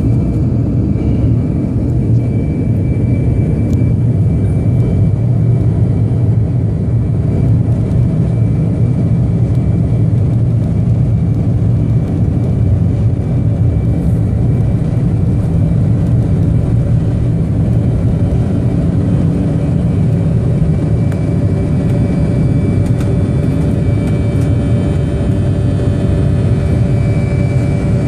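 Airliner engines at takeoff power, heard inside the passenger cabin: a loud, steady rumble through the takeoff roll and liftoff, with a thin whine that comes in more strongly in the second half.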